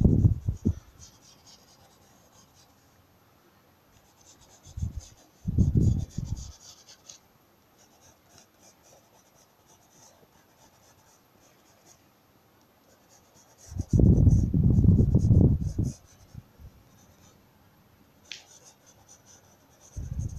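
Graphite pencil drawing and shading on spiral notebook paper: light scratchy strokes, broken by several louder, dull rubbing passages a second or two long as the pencil or hand works over the page.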